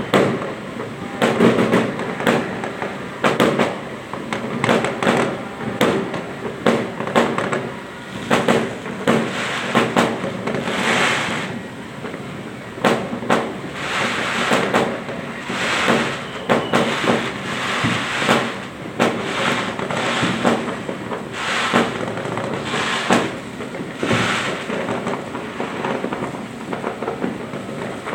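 Fireworks going off repeatedly: a dense run of sharp bangs, with louder stretches of crackling bursts around the middle.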